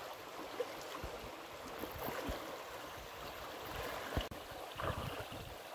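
Shallow river running over stones, with splashing from a person wading and a dog swimming in it.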